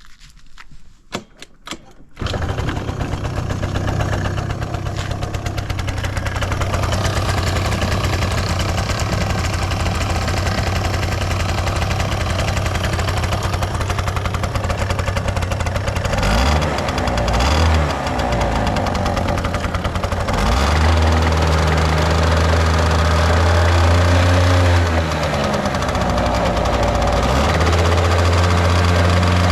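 Suzuki Let's II 50cc two-stroke scooter engine started cold: a few clicks, then it catches about two seconds in and idles steadily. From about halfway on it is revved up and down several times, rising cleanly in pitch without abnormal noises.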